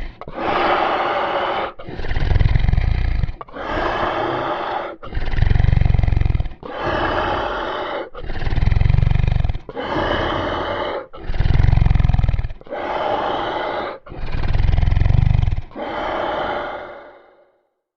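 Monster sound effect: a series of deep growling roars, one about every one and a half seconds, every other one heavier in the bass, fading out near the end.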